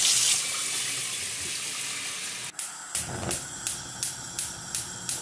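Tap water running into a stainless steel pot for about two and a half seconds. Then a gas hob burner lights, its spark igniter clicking about four times a second over the low rush of the flame.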